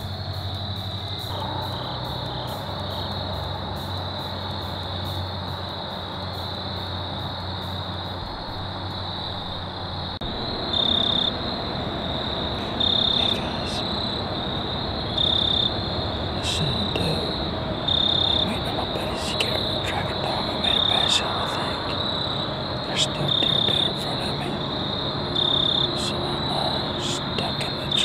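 Insect chorus: a steady high-pitched drone, joined about ten seconds in by a louder high chirp of about half a second that repeats every two to three seconds.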